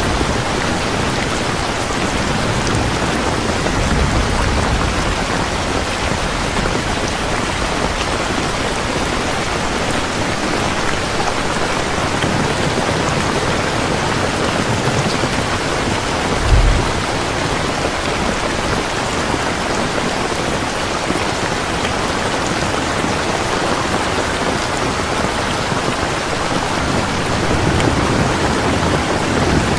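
Heavy rain falling steadily, with faint low rumbles of thunder. A brief low thump, the loudest moment, comes about halfway through.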